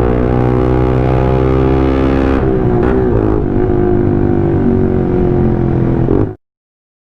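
Suzuki Gixxer SF motorcycle engine running through an aftermarket SC Project exhaust pipe, a loud steady drone whose pitch wavers briefly with a small throttle change about two and a half seconds in. It cuts off suddenly about six seconds in.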